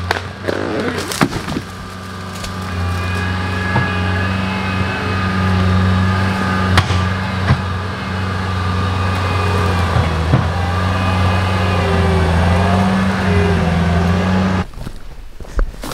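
Bobcat skid steer's diesel engine running hard while it pushes over a dead tree, with sharp cracking and snapping as the trunk gives way in the first couple of seconds and a few single knocks later. The engine sound cuts off suddenly near the end.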